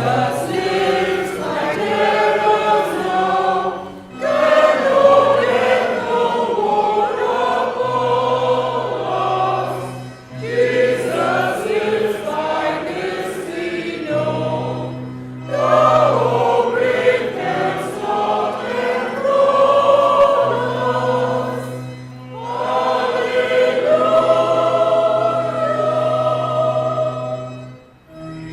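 Church choir singing in long phrases, each a few seconds long, with brief breaks between phrases and steady low notes held underneath.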